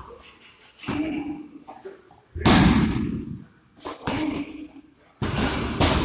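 Punches and a knee landing on Muay Thai pads and a belly pad: a series of about six sharp smacks, the loudest and heaviest about two and a half seconds in, each dying away over about half a second.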